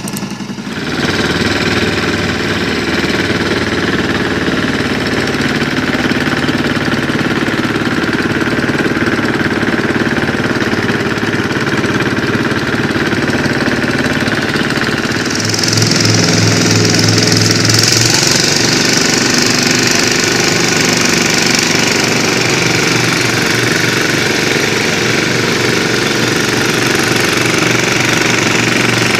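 An engine running steadily with a rough, knocking note. About halfway through it gets louder and a strong hiss joins it.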